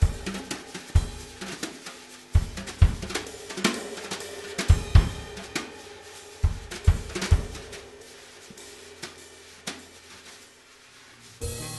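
A drum kit played largely on its own: kick drum, snare, cymbals and hi-hat in a loose fill-like pattern, thinning out to sparse hits in the last few seconds. Just before the end the full band comes in with sustained notes.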